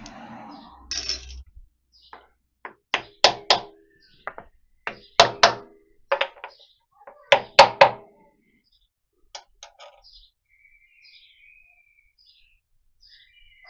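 A series of sharp knocks on the metal bearing cover plate of a milling machine's output shaft, struck to loosen it, in groups of two or three over about five seconds, each with a short metallic ring. Fainter handling clicks follow.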